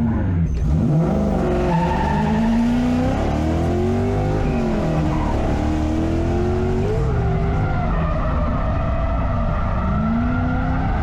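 Drift car's engine revving up and down over and over, with tyres skidding on the track.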